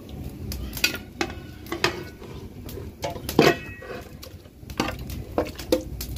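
Metal dish knocking and clinking against the rim of a metal cooking pot as chunks of raw meat are tipped into the water inside, in a string of separate knocks. The loudest, with a short ring, comes about halfway through.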